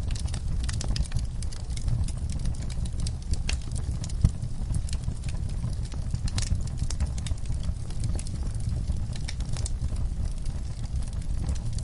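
Fireplace wood fire crackling, with frequent sharp pops and snaps over a steady low rumble of the flames; one louder pop about four seconds in.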